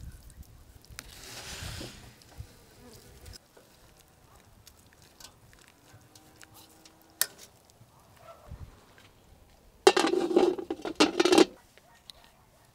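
Water splashing and dripping into wide aluminium cooking pans, with small clinks of metal. The loudest part is a dense burst of about a second and a half near the end.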